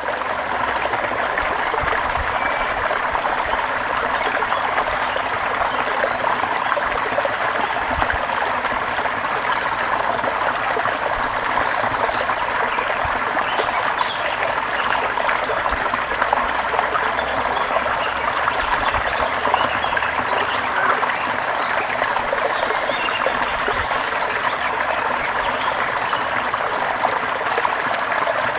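Forest stream of water flowing steadily, an even, continuous rush with no pauses.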